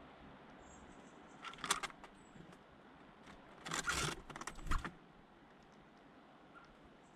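Small birds scuffling close to the microphone: two short bouts of rapid clicking, tapping and rustling, the second about a second long, with a faint high chirp before the first.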